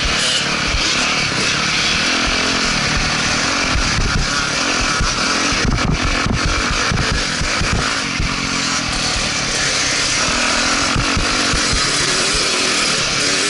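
Dirt bike engines running at trail speed, heard close up through a helmet camera on a moving bike, with a steady high hiss over the engine buzz.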